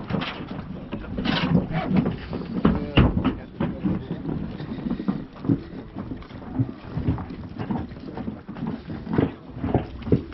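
Irregular knocks and bumps of people moving about and stepping in a small fibreglass (FRP) river-crossing boat, with voices in the background.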